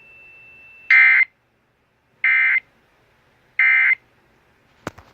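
Three short bursts of EAS SAME digital data tones, a harsh buzzy warble around 2 kHz, about a second and a half apart: the End of Message code that closes an Emergency Alert System broadcast. A faint steady high tone runs until the first burst, and a couple of sharp clicks come near the end.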